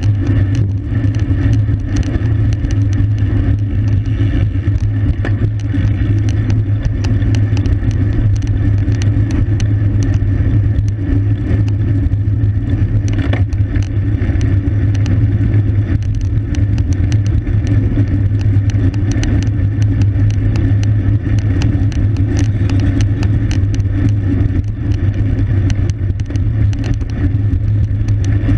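Steady wind rush and road rumble on a camera riding on a racing bicycle at speed, with many small ticks and rattles through it.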